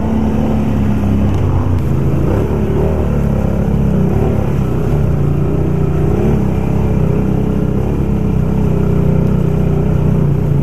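Can-Am ATV engine running steadily under throttle, its pitch wavering a little, as it drives through a flooded trail with water washing around the wheels.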